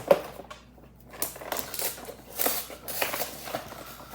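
Cardboard and plastic packaging of a Pokémon card collection box being opened and handled. A sharp click comes just after the start, then irregular crinkling and rustling.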